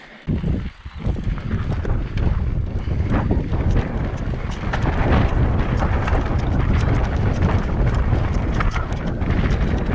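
Wind rumbling on the microphone of a camera riding along on an electric mountain bike, with scattered knocks and rattles from the bike going over rough ground. It starts suddenly just after the beginning and then runs steadily.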